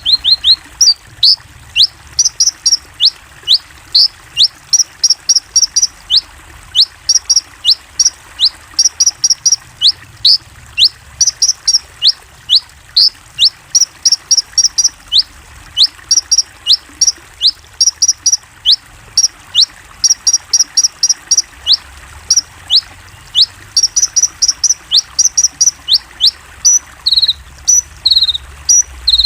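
A konin songbird singing a fast, continuous song of sharp down-slurred whistles, a few a second, mixed with quick trills of higher chirps. Near the end the song switches to shorter, lower notes.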